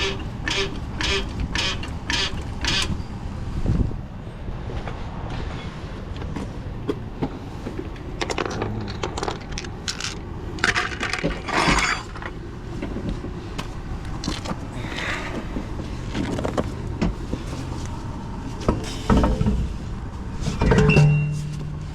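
Wind noise with scattered metal clanks and knocks of hand tools at a roadside tire change, opening with a quick, even run of clicks, about three a second for the first few seconds.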